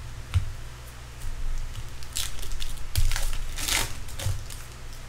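Stiff chrome trading cards being shuffled and slid against one another by hand, a few short crinkly brushing sounds with the longest, loudest one a little past three seconds in.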